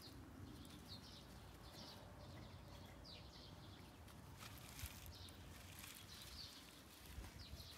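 Quiet outdoor ambience: a low steady rumble with faint, short high chirps of small birds repeating about once or twice a second.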